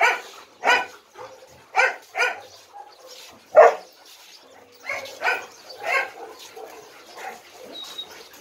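Kennel dogs barking: single barks every second or so, the loudest about three and a half seconds in.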